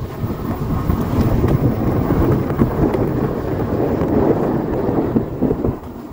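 Wind buffeting the microphone: a loud, continuous, gusting low rumble that eases off near the end.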